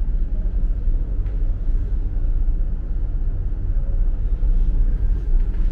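Low, steady rumble of the ferry's engines and machinery, heard inside the ship's passenger deck.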